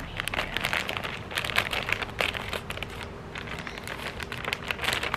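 Plastic potting-mix bag crinkling and rustling as it is handled and opened, in dense irregular crackles.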